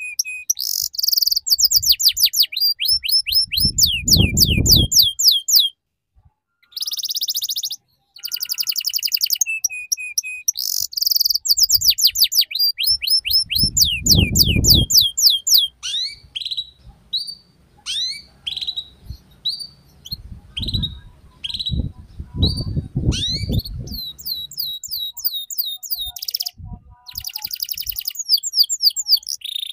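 Domestic canary singing fast trills of quickly repeated, high downward-sweeping chirps, phrase after phrase, with a break of about two seconds around six seconds in.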